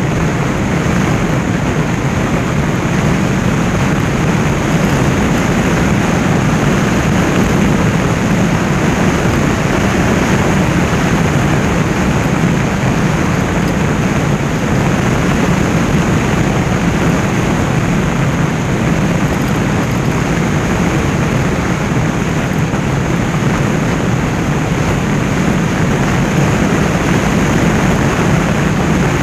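Steady wind rush on the microphone mixed with the even drone of a motorcycle engine at cruising speed.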